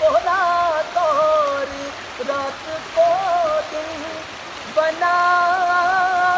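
Background music: a slow melody of long held, slightly wavering notes that break off and start again, the longest note held through the last second and a half, over a steady hiss.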